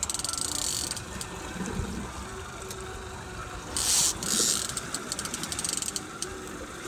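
Fishing reel ratcheting while a king salmon is being fought: runs of rapid clicks, plus two louder buzzing rattles of the drag giving line. The first rattle comes at the start and the louder one a little past halfway.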